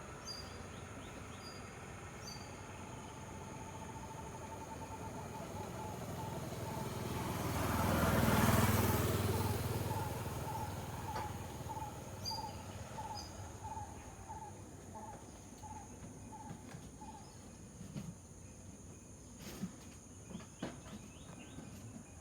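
A vehicle passes, its noise swelling slowly to a peak about eight seconds in and then fading away. Under it runs a steady high insect hum, with a few short bird chirps and a repeated call about twice a second through the middle.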